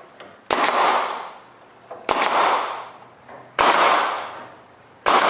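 Pneumatic nail gun firing into plywood strips to join them, four sharp shots about a second and a half apart, each trailing off in a hiss over about a second.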